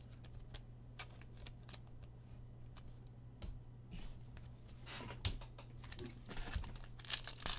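Trading cards being handled and slid against one another in a stack: faint scattered clicks and flicks that get busier near the end, over a steady low hum.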